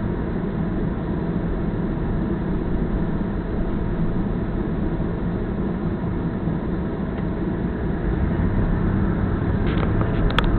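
Steady engine and road noise inside a moving car, picked up by a dashcam microphone, with a few light clicks near the end.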